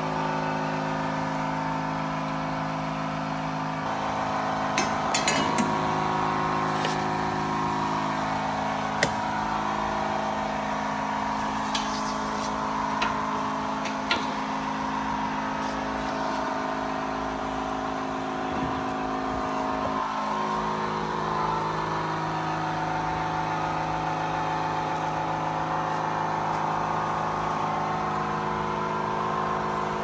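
Pressure-washer lance spraying water over a truck's chassis, over a steady machine hum, with a few sharp clicks and clinks in the first half.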